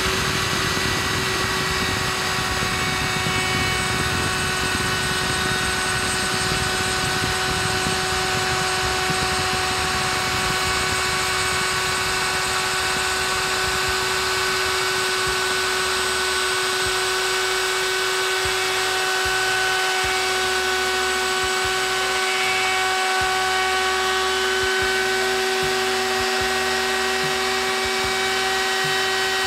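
Handheld electric wood router running steadily at full speed with a constant high whine, routing lettering into a cedar board.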